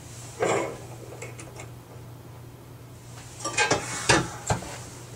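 A 14-karat gold bangle clinks against the sample stage as it is set into an XRF spectrometer's chamber, followed by a few faint ticks. From about three and a half seconds in comes a cluster of sharp knocks and clatter as the spectrometer's hinged lid is handled and closed.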